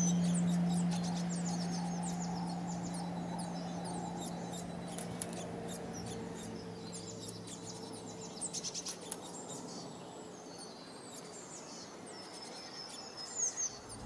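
Small songbirds chirping and trilling in quick high notes over a low, held note of ambient music that slowly fades away.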